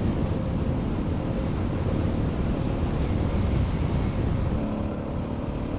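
Adventure motorcycle riding on a dirt track: the engine running steadily under way, mixed with heavy wind rush on the microphone.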